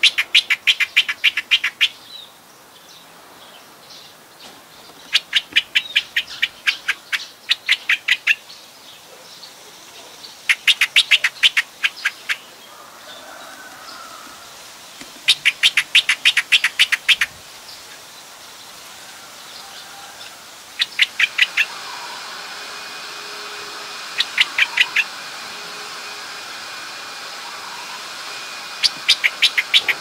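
Streak-eared bulbul calling: rapid runs of sharp, evenly repeated notes in bursts of one to three seconds, coming again every few seconds. From about two-thirds of the way in, a faint steady high whine hums underneath.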